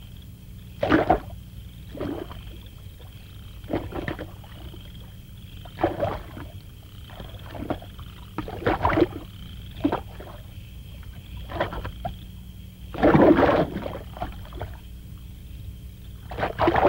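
Water splashing and bubbling in irregular bursts, roughly one every second or two, the longest about two-thirds of the way through, over a steady low hum and a faint high tone.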